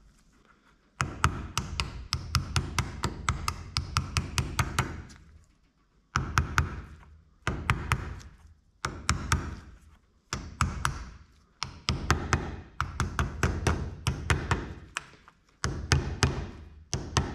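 A hammer tapping quickly on an old bearing used as a driver, pushing a new lip seal down into a John Deere mower deck spindle housing toward the bearing below. Light strikes come several a second in runs of one to two seconds, with short pauses between.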